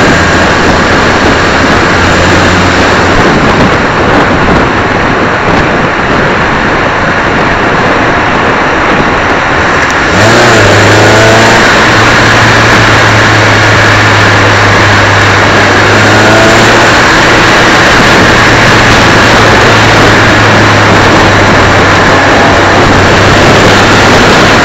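Suzuki Swift Cup race car at speed, picked up by an onboard camera mounted low on the car: loud, steady engine, wind and road noise. About halfway through it gets slightly louder and the engine note rises as the car accelerates, rising again a few seconds later.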